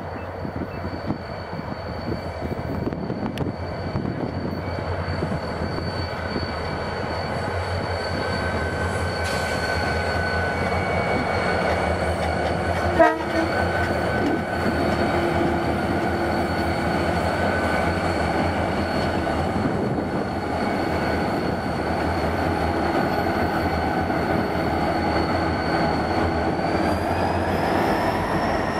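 Several Grindrod RM30 diesel locomotives running past at close range hauling freight: a steady engine drone with a high-pitched whine over it, growing louder over the first several seconds as they draw near. A brief sharp sound stands out about 13 seconds in, and the whine rises slightly in pitch near the end as later units pass.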